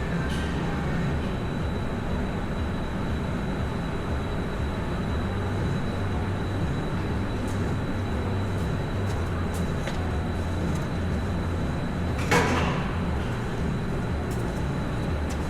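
Steady low mechanical hum with a thin high whine, broken by a sharp knock with a short ring about twelve seconds in and another right at the end.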